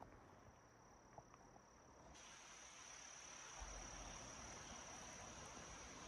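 Faint, steady high-pitched insect trill over quiet outdoor ambience. It becomes louder about two seconds in.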